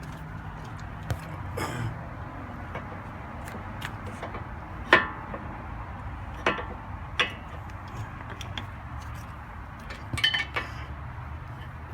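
Small metal brake parts clinking and tapping while brake pads and their hardware are handled and fitted at a car's caliper: a handful of separate sharp clinks with a short ring, the loudest about five seconds in and a quick cluster near the end. A low steady hum runs underneath.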